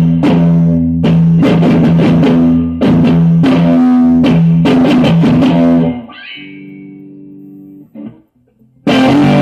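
Electric guitar strummed hard in loud, rhythmic chords with short breaks between them. About six seconds in the strumming stops and a quieter chord rings on, then comes a near-silent pause of about a second before loud strumming starts again near the end.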